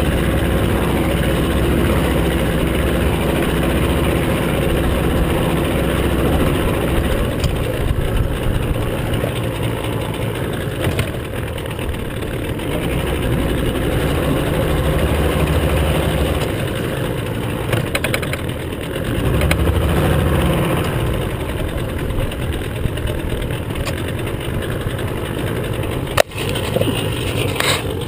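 Evinrude outboard motor running under way while towing a tube, with water noise around it; the engine note dips and comes back up a couple of times. A sharp knock near the end.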